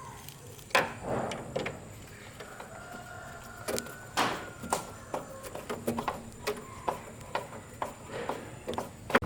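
Irregular light clicks and knocks, roughly one or two a second, like small objects or tools being handled and set down.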